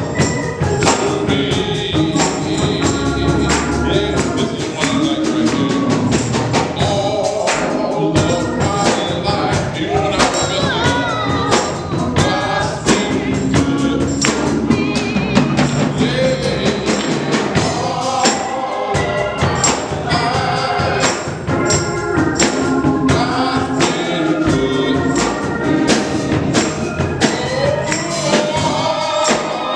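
Live gospel music in a church: voices singing over a steady percussive beat.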